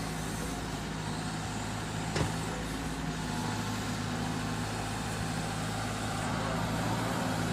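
A steady, even engine drone like a heavy truck idling, with one click about two seconds in; it cuts off suddenly at the end.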